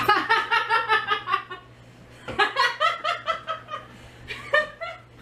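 A person laughing in three bouts of quick, rhythmic chuckles, over a faint steady low hum.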